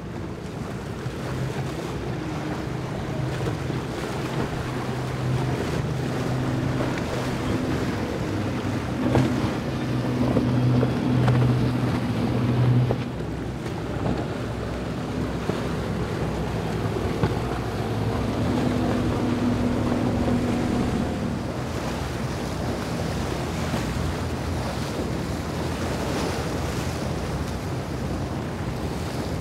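Center-console boats running under power through choppy water: a steady engine drone that swells as a boat passes, loudest about a third of the way in, and swells again past the middle. Beneath it, the rush of spray and waves and wind on the microphone.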